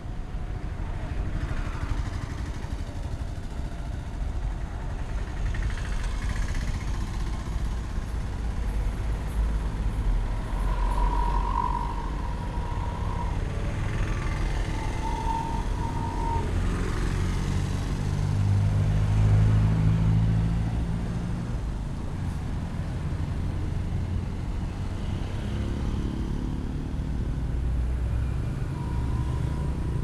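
Road traffic passing: a steady rumble of cars and heavier vehicles, with one engine passing loudest a little past halfway. Two brief high tones sound near the middle.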